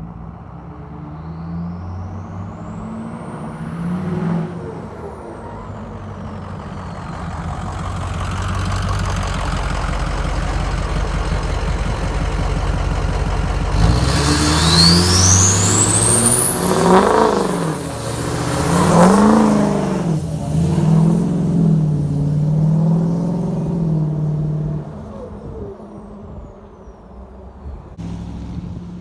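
Ford 6.0 Powerstroke V8 turbo-diesel running under throttle, with a high turbo whistle climbing sharply about halfway through. Several revs rise and fall after that, and the engine settles back to a lower, steadier sound near the end.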